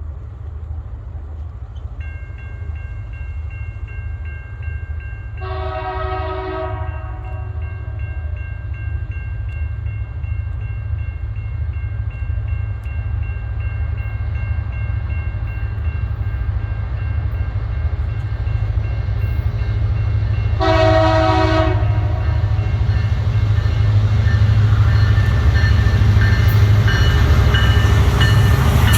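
Approaching diesel locomotive: a deep engine rumble growing steadily louder, with two horn blasts, one about five seconds in and one about twenty-one seconds in. A faint steady high whine runs underneath.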